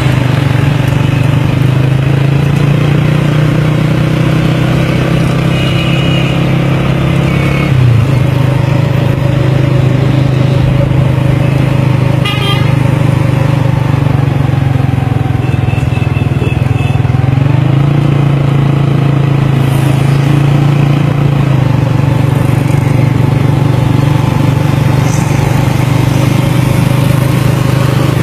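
Small motorcycle engine running steadily at close range, with street traffic around it.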